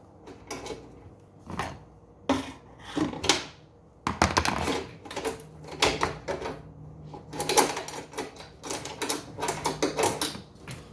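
Irregular clicks, knocks and rattles of metal and plastic parts being handled while the power-cord wiring is taken out of a PTAC air-conditioner unit. The clicks come thicker after a few seconds, and a low hum runs under them through the middle.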